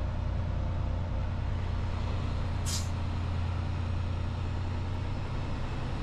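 Semi-truck diesel engine running steadily, with a short hiss of air from the air brakes about two and a half seconds in.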